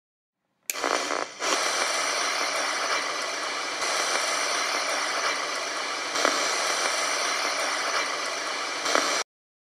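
A loud, steady hiss of crackling static noise that starts suddenly about a second in, dips briefly, and cuts off abruptly near the end.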